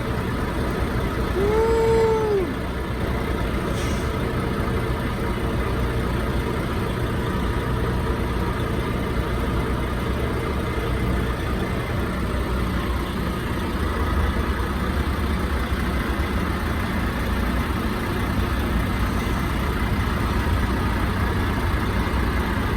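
Steady motor-vehicle engine and road rumble, with one short tone that rises and then falls about two seconds in.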